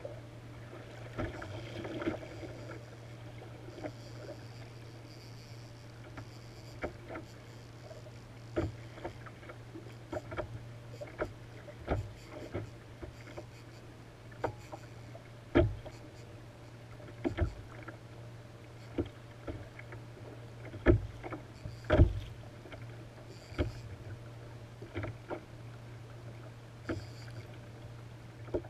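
Irregular knocks and slaps of choppy water against a plastic sit-on-top kayak's hull while an angler fights a fish on rod and reel, a few of them much louder than the rest, over a steady low hum.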